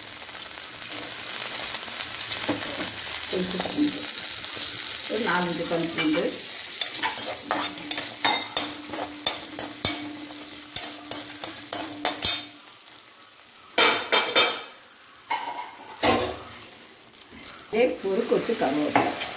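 Whole spices and garlic sizzling in hot oil in a steel kadai, with a steel ladle scraping and clicking against the pan as they are stirred. Two louder bursts come about two-thirds of the way through, then the sizzle drops quieter.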